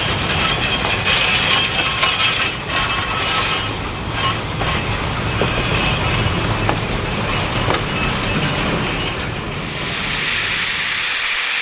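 Steam train rolling by: rail-car wheels clattering over the track with a low rumble and scattered clicks. About ten seconds in, the rumble drops away and a steady hiss of escaping steam takes over.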